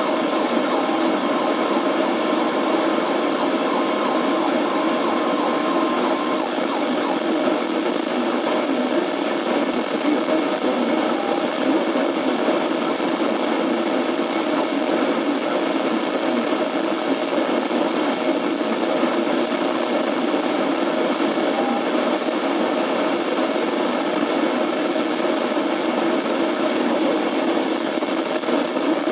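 Steady radio static: an even, band-limited hiss from a weather radio receiver, with no intelligible voice in it.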